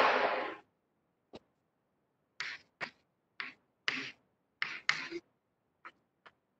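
Chalk writing on a blackboard: a string of short, separate scratchy strokes as letters are written, about eight of them and irregularly spaced. A louder, brief noise comes right at the start.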